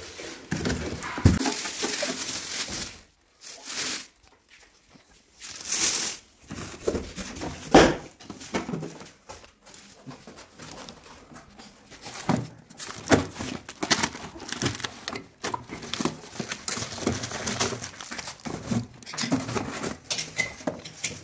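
Plastic wrapping and cardboard packaging crinkling and rustling in irregular spurts as a boxed welding machine and its accessories are unpacked, with a few sharp knocks.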